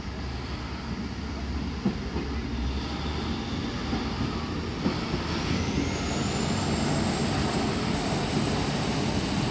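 Electric suburban passenger train moving through the station, a steady rumble. About five seconds in, a high whine rises and then holds steady.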